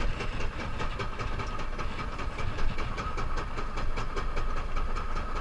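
Small fishing boat's engine running steadily, with a thin steady whine over the low hum.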